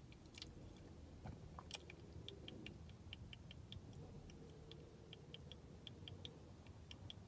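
Near silence in a car cabin: a faint low hum with quick, light ticks at uneven spacing starting about two seconds in.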